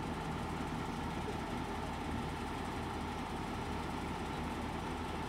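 A vehicle's engine running, heard from inside among its passengers: an even drone with no sudden sounds.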